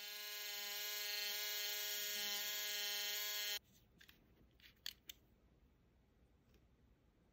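Small handheld electric mini drill running with a steady whine, spinning an aluminium tube whose end is pressed against a sanding stick; the motor stops abruptly about three and a half seconds in, followed by a few light clicks.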